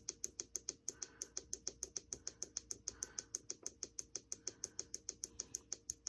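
Dimmer switch on a sewing-machine LED light strip being clicked rapidly and evenly, about six clicks a second, as the light is turned down.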